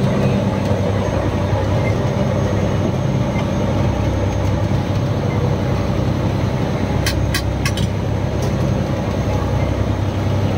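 Fishing boat's inboard engine running steadily with a constant low drone. A few faint clicks about seven seconds in.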